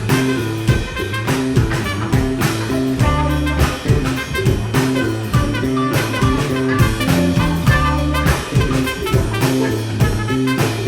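Live funk band playing, with a horn solo over the bass line and drum kit.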